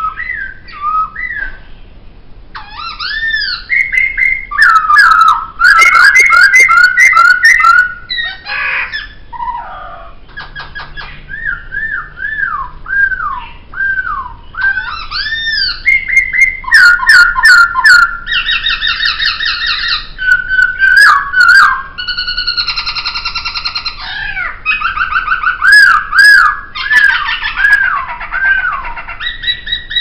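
Poksay (a laughingthrush) singing a loud, varied song. It is made of clear whistled notes that slide up and down, fast runs of repeated notes, and a few harsh rattling notes.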